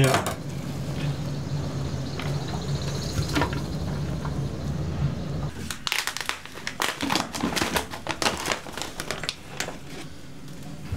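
Brown paper bag crinkling and rustling as gloved hands open and handle it, a dense run of crackles from about halfway through. Before that, a steady low hum with a few scattered clicks.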